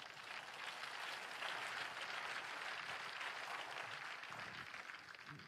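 Faint applause from an audience, an even patter of many hands that swells a little and then tapers off near the end.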